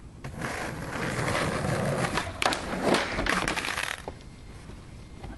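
Skateboard rolling over coarse asphalt with a gritty rattle, with a couple of sharp clacks of the board near the middle; the rolling stops about four seconds in.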